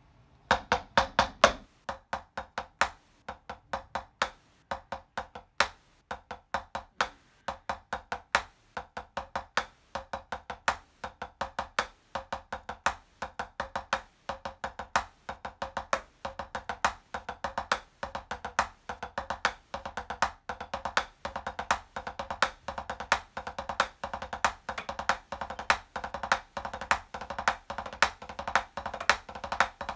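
Drumsticks striking a rubber drum practice pad in rudiment exercises: crisp, dry strokes in rhythmic groups, the strokes coming denser and faster later on.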